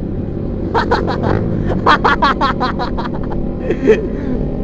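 Motorcycle engine running steadily through a loud racing exhaust. A rapid run of sharp, cracking bursts starts about a second in and lasts about two seconds, and there is a brief loud sound near the end.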